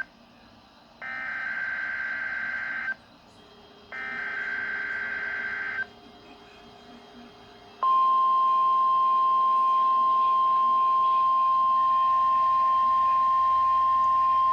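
NOAA Weather Radio Specific Area Message Encoding (SAME) header of a required weekly test: two stretches of digital data tones, each about two seconds with about a second's gap. A steady, loud single-pitch 1050 Hz alert tone comes on sharply about eight seconds in and holds.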